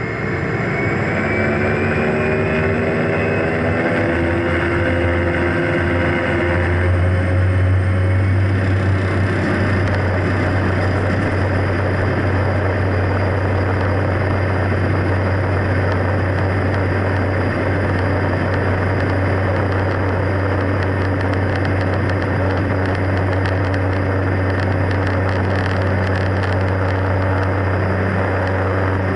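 Cessna Caravan's single Pratt & Whitney PT6A turboprop and propeller coming up to takeoff power: tones rise over the first seven seconds or so, then settle into a loud, steady drone with a deep propeller hum and rushing noise.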